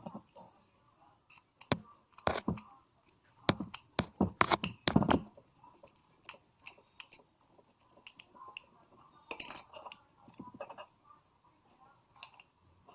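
Sharp clicks and light knocks of the small parts of a household electrical switch being handled and fitted together, with a quick run of them around four to five seconds in and another around nine and a half seconds.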